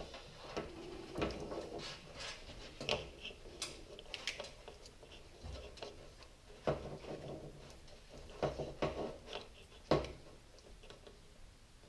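Handling noise from wiring and its plastic shielding being worked by hand: irregular clicks, taps and rubbing, with a sharper knock near the end.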